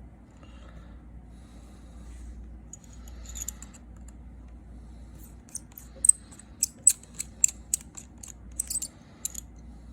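Small metal tools and screws clinking on a work surface: about a dozen sharp, light clicks and clinks in an irregular run through the second half, after quieter handling.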